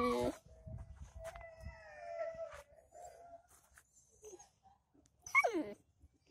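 Husky puppies howling and whining: a loud cry ending just at the start, a long, steady, fainter whine-howl over the next couple of seconds, then a short, loud cry that falls steeply in pitch about five seconds in.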